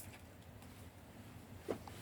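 Faint low hum of a quiet room, with one short soft tap about three-quarters of the way through.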